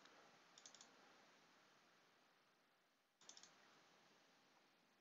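Faint computer mouse clicks: two quick runs of clicks, about a second in and again about three seconds in, double-clicks opening folders in a file dialog, over faint hiss.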